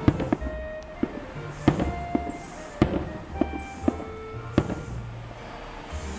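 Aerial fireworks bursting: about six sharp booms at uneven intervals, the loudest near the middle, with music playing alongside.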